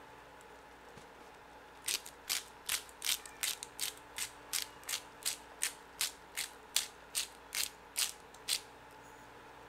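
Pepper mill being twisted to grind black pepper: a run of about twenty ratcheting clicks, nearly three a second, starting about two seconds in and stopping near the end.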